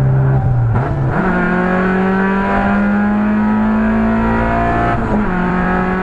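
Honda Civic EG's B18 four-cylinder engine running under load on the move, its note climbing slowly. The pitch dips and jumps up about a second in, and blips and settles again about five seconds in.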